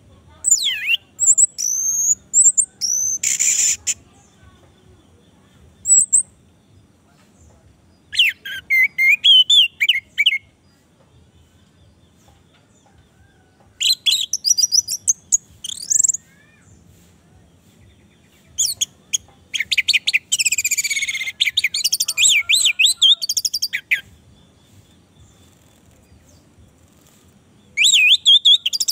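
Orange-headed thrush singing loudly in separate bursts of varied, fast whistled and trilled phrases, with pauses of a few seconds between them; the longest, busiest phrase comes about two-thirds of the way through.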